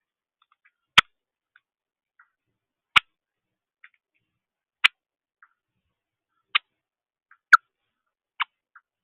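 A series of six sharp clicks, a second or two apart at uneven intervals, with fainter ticks between them; the loudest comes near the end.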